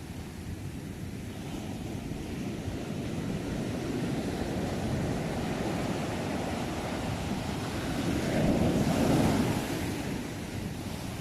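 Sea waves: a continuous rush of surf that swells, is loudest about nine seconds in as a wave comes in, then ebbs.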